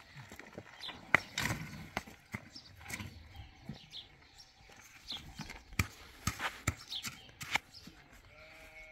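Irregular clicks and knocks of stones being handled and set down by hand on gravelly ground, the sharpest about a second in, with footsteps on gravel.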